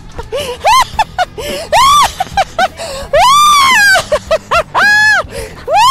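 A woman squealing and shrieking with laughter in play, a string of high-pitched cries that rise and fall, the longest held for about a second.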